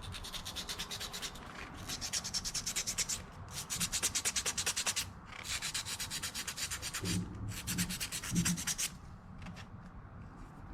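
Sandpaper rubbed by hand over a burr and a small rust spot on a hydraulic cylinder part. It goes in quick back-and-forth strokes, about six a second, in several short bouts with brief pauses.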